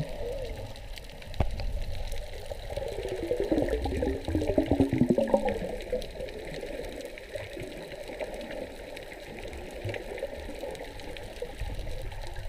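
Muffled water sloshing and bubbling heard from underwater. It is busiest and loudest from about two to six seconds in, then settles to a steady wash.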